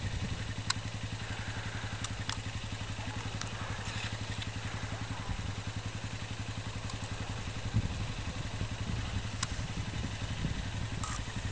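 Small ATV engine idling steadily with an even, rapid low pulse, with a few short sharp clicks over it.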